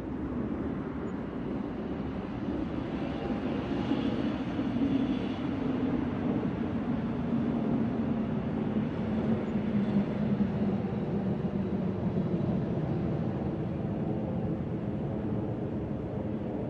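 City ambience heard from a rooftop: a steady rumble, with a passing vehicle swelling through the middle, its drone sliding slowly lower in pitch.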